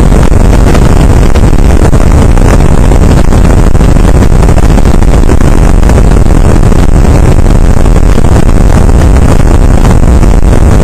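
Outboard motor of a small skiff running steadily under way, loud and unbroken.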